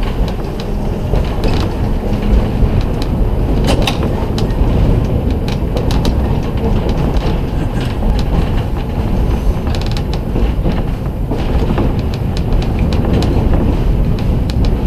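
Historic streetcar rolling along its track: a steady low rumble of the wheels on the rails, with irregular creaks and sharp clicks from the car as it rides.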